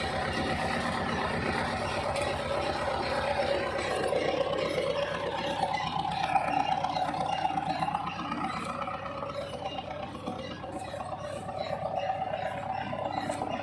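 Toyota 13B diesel engine in an FJ40 hardtop running steadily at low speed, pulling the driverless truck in low gear. Faint voices sound in the background.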